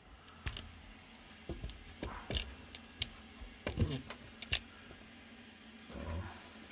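Irregular clicks of keys or buttons being pressed, about ten over several seconds, over a faint low hum.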